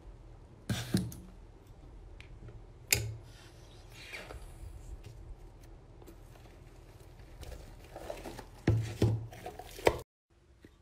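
Fluffy white slime being cut into and squished by hand, giving soft sticky squelches with scattered pops and crackles. The loudest pops come about a second in, about three seconds in, and in a cluster near the end, over a low steady hum.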